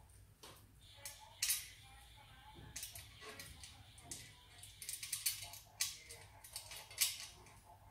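Irregular metallic clicks and scrapes of hands handling and fitting parts on a homemade scooter's metal tube frame. The sharpest clicks come about a second and a half in, in a cluster around five to six seconds, and once near the end.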